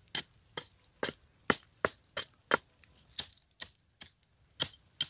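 A small hand blade chopping repeatedly into the base of a young mango tree's trunk: sharp strikes about two to three a second, with a short gap near the end. The trunk is being cut into to get at stem borer grubs inside.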